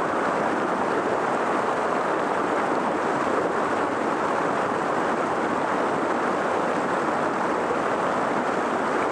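Havasu Creek rushing steadily over rocks and small rapids, a constant even hiss of moving water.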